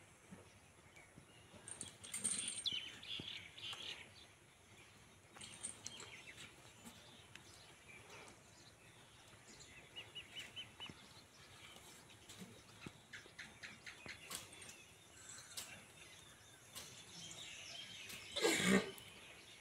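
Birds chirping and calling in scattered short notes, with one quick trill of evenly spaced notes halfway through. About a second before the end comes a brief, louder call of unclear source.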